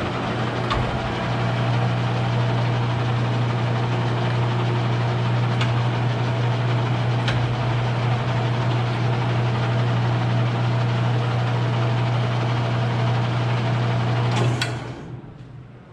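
Weiler DA260 engine lathe running with its spindle in low range: a steady motor and gearbox hum with a few light clicks. About 14.5 s in it is switched off with a click and spins down within about a second.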